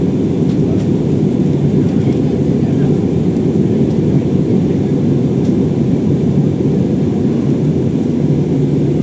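Airliner cabin noise during descent: the steady, low-pitched rush of the jet engines and airflow, heard from inside the passenger cabin.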